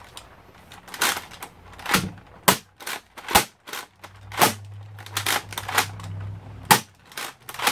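Nerf Rotofury spring-powered pump-action blaster being slam-fired: a string of sharp plastic clacks and shots, about one a second, as the pump is worked with the trigger held.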